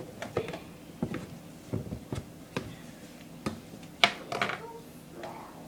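Scattered light taps and knocks of kitchen utensils and containers being handled while baking ingredients are measured out.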